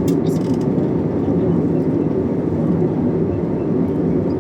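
Steady low rumble of an airliner's cabin noise from its engines and airflow, with a couple of short clicks at the very start.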